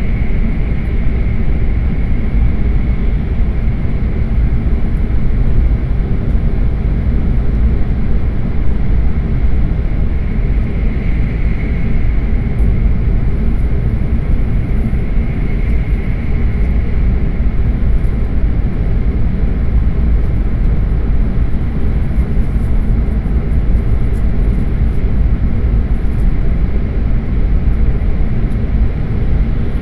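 Hokuriku Shinkansen train running at speed, heard from inside the passenger car: a steady deep rumble with a faint high whine that swells and fades a few times.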